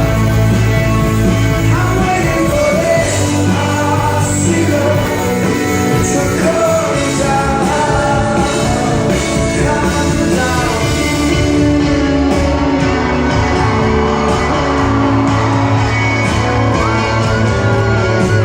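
A rock band playing live in a concert hall, a lead singer over a full band with bass and drums.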